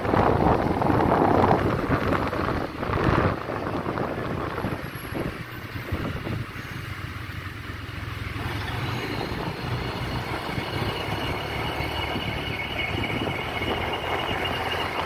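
City street traffic noise with wind buffeting the phone's microphone, louder for the first few seconds; a faint high steady whine joins a little over halfway through.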